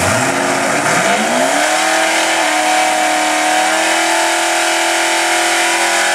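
Vortech-supercharged Ford Mustang engine revving up over about a second and a half, then held at steady high revs while the rear tyres spin in a burnout.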